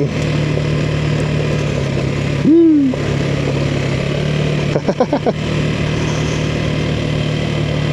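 Motorcycle engine running at a steady, low speed on a rough dirt descent. About two and a half seconds in there is a brief loud tone that rises and then falls, and around five seconds in a few short wavering sounds.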